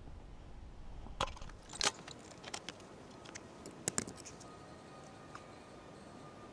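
Scattered sharp clicks and light metallic clinks of hand tools and steel parts being handled, the loudest about one, two and four seconds in.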